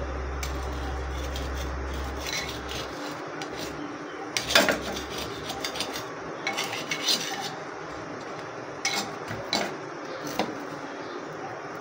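Metal knife scraping and clicking against an earthenware khola pan while working loose a chitoi pitha (steamed rice-flour cake). There are a few short scrapes, the loudest about four and a half seconds in and the rest between about six and ten seconds, over a steady background hiss.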